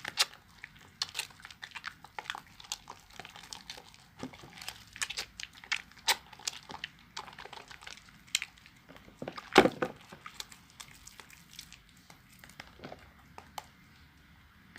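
A wet sponge lathering a bar of baby soap: irregular squelches and crackling clicks of foam, with one louder squelch about two-thirds of the way through and quieter rubbing near the end.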